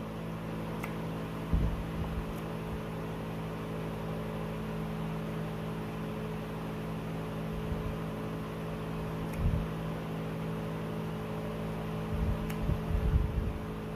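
Steady low electrical hum, like a room appliance or fan, with a few soft low thumps and faint small clicks, a cluster of them near the end.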